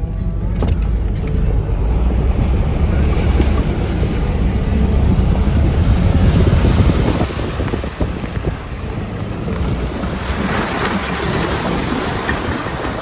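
Wind buffeting the microphone over the steady rumble of a moving vehicle's engine and road noise.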